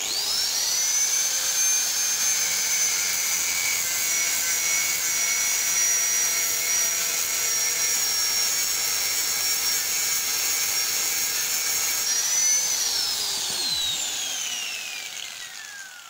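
Electric angle grinder with a cutting disc starting up and running at a high, steady whine while cutting a 5 mm steel plate. About twelve seconds in the pitch rises briefly. The grinder is then switched off, and its whine falls away as the disc spins down.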